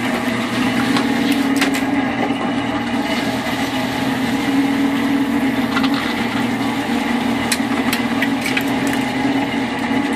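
Fishing boat's engine running steadily, with a few sharp knocks scattered through.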